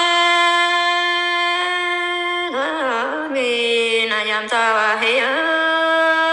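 One voice singing an Iu Mien folk song in long held notes. In the middle, twice, the pitch wavers and dips lower before settling back on the held note.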